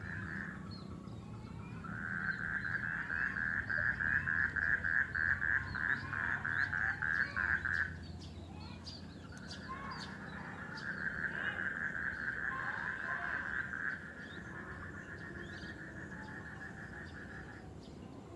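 A loud, rapidly pulsed animal trill held on one pitch, in two long bouts: the first about two to eight seconds in, the second from about nine seconds until shortly before the end. Faint bird chirps sound behind it.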